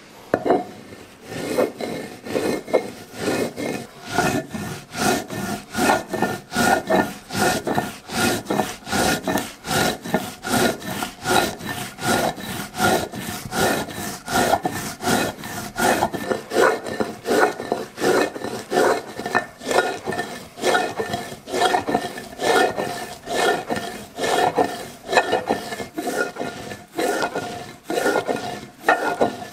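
Stone roller rubbing back and forth over a stone grinding slab (a metate), crushing roasted cacao nibs into paste, in a steady rhythm of about two scraping strokes a second.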